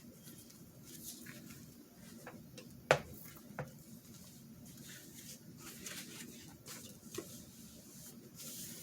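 Quiet paper-crafting handling sounds: paper and card rustling and being rubbed or pressed down, with a sharp tap about three seconds in and a few lighter clicks.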